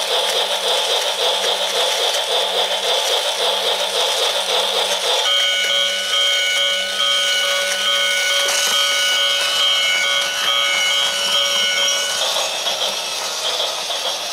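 Battery-operated toy train running on plastic track with a fast rhythmic running sound. About five seconds in, the locomotive gives out steady electronic tones in a repeating beeping pattern for about seven seconds, then the rhythmic running sound returns.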